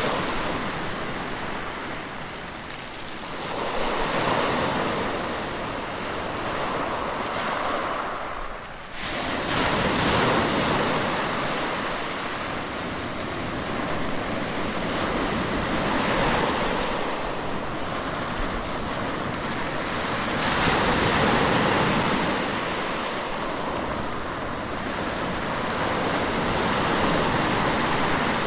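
Sea waves breaking in steady surf, the wash swelling and easing every five or six seconds.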